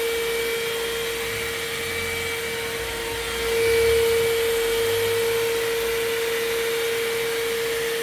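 Cordless handheld vacuum cleaner (Tusa) running steadily, with a strong steady high hum over a rushing airflow, as its nozzle is worked over a dusty mosquito-net window screen. It gets slightly louder for a moment about three and a half seconds in.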